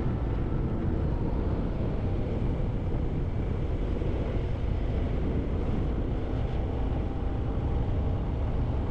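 Harley-Davidson Sport Glide's V-twin engine running on the move, under a steady rush of wind, heavy in the low end.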